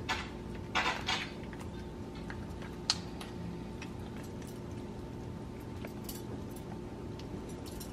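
Lobster tail shell crackling and scraping as the raw meat is pulled out by hand: a few short crackles in the first second or so and a sharp click about three seconds in, over a low steady hum.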